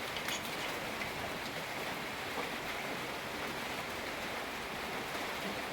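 Steady rain falling, an even hiss with a few faint ticks of drops near the start.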